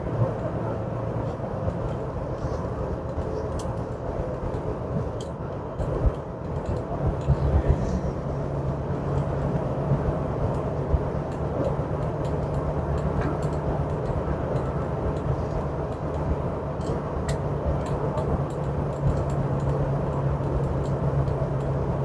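Steady road and engine noise inside a moving car's cabin at highway speed. A low steady hum sets in about seven seconds in, with a few light bumps just before it.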